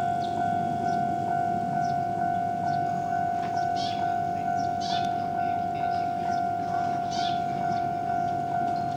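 Japanese railway level-crossing warning bell ringing in a steady repeated clang, about two strokes a second, with a low rumble underneath and a few brief high squeaks.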